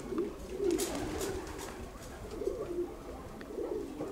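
Racing pigeons cooing at the loft, a run of low wavering coos, with a few faint light clicks.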